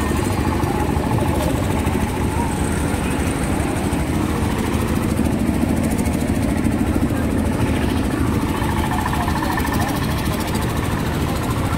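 Steady hubbub of a large outdoor crowd over a continuous low engine-like rumble, with no single voice or event standing out.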